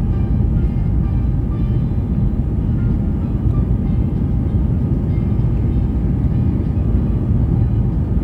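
Steady low rumble and rush inside a jet airliner's cabin on descent: engine and airflow noise heard from a window seat by the wing.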